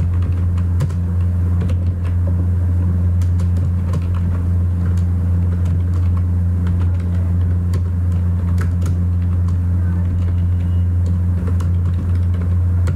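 A loud, steady low hum on the recording, with scattered keyboard keystroke clicks as code is typed.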